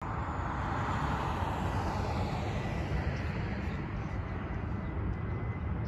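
Distant Airbus A321 jet engines at takeoff power during the takeoff roll: a steady low rumble, with a hissing layer that fades after about two seconds.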